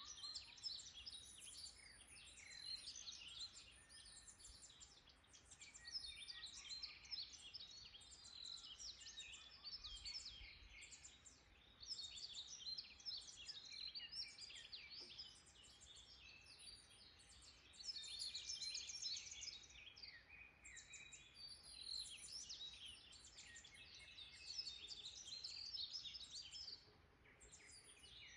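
A chorus of many small birds chirping and singing at once: quick, high, overlapping chirps and trills that go on without a break, swelling and easing every few seconds.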